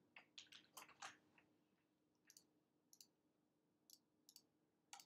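Faint computer mouse clicks, a quick cluster in the first second and a half, then single clicks about once a second, over a faint steady hum.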